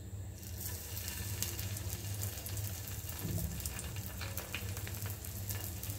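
Hot oil in a nonstick frying pan sizzling and crackling as slices of frozen egg are dropped in to fry, the sizzle starting about half a second in, over a low steady hum.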